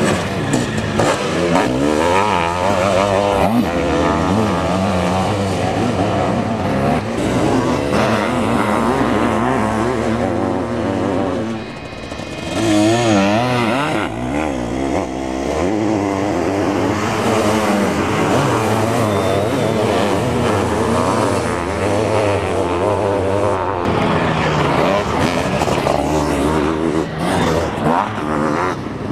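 Sidecar motocross outfits' motorcycle engines racing, rising and falling in pitch as the riders open and close the throttle through the track. Several machines overlap. Just after the middle of the clip the sound briefly drops, then one outfit passes close and loud.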